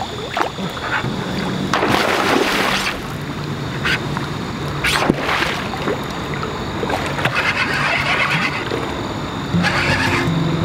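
River water running past a wading angler, broken by several sudden splashes as a hooked king salmon thrashes at the surface.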